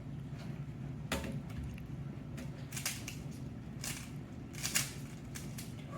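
Plastic Rubik's-type speedcube being turned by hand, its layers clicking irregularly as they are scrambled, over a steady low hum.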